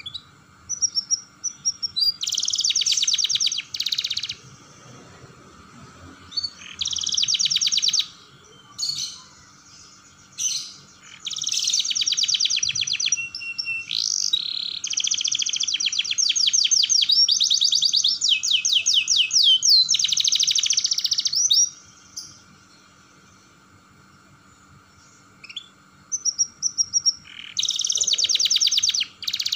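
Domestic canary singing in bouts of fast rolling trills, with short single notes between them. The song pauses for several seconds about three-quarters of the way through, then a last trill starts near the end.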